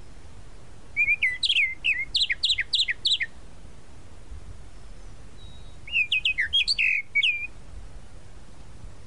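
Tropical mockingbird singing: two phrases of quick, sharp, varied notes, each lasting about two seconds, a few seconds apart, over a steady background hiss.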